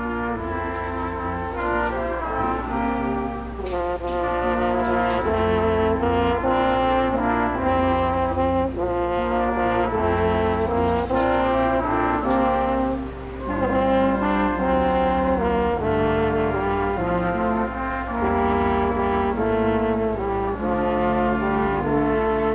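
A brass ensemble of trumpets and trombones playing a piece in held, sustained chords. The playing eases briefly about two-thirds of the way through.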